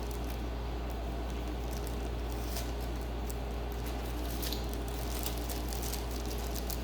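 Light handling noises, scattered small clicks and scratches of parts and tools being moved, over a steady low hum.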